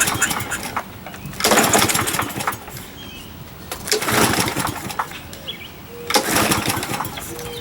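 Briggs & Stratton 6.25 (625EX) push-mower engine being pull-started three times, about two and a half seconds apart: each pull spins it over in a short burst of rapid beats, but it does not keep running, which the owner puts down to a probably dirty carburetor.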